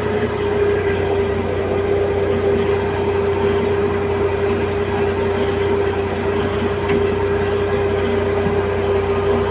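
A heavy-equipment engine running steadily at a constant speed, with a fast even firing pulse and a steady whine over it.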